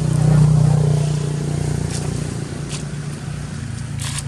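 A motor vehicle's engine running steadily as a low hum, loudest about half a second in and then easing off slightly, with a few faint ticks near the end.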